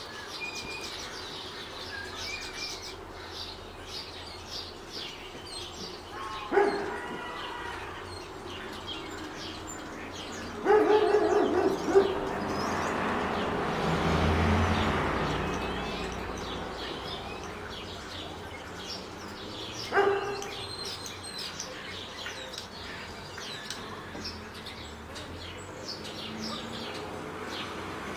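European starling singing: a long, rambling song of short clicks, rattles and whistles mixed with mimicked calls of other birds. Louder calls break in about six and a half seconds in, around eleven seconds and at twenty seconds, and a rushing noise swells and fades in the middle.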